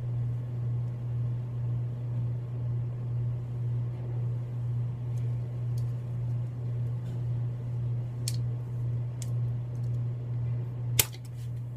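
Steady low mechanical hum, like a fan or machine running, with a gently pulsing loudness. A few faint light clicks sound midway, and one sharp click near the end.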